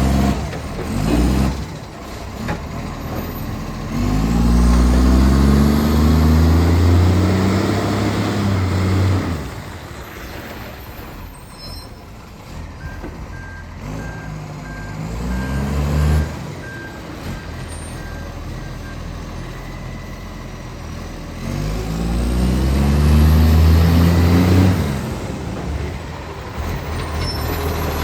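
International ACCO garbage truck's diesel engine revving up and holding high revs for several seconds, three times, then dropping back to idle; the truck has an exhaust leak. A reversing beeper beeps repeatedly in the middle.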